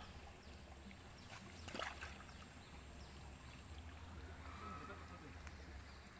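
Faint water splashing as a hooked bawal (freshwater pacu) thrashes at the pond surface beside a landing net, with a sharper splashy clatter about two seconds in, over a low steady rumble.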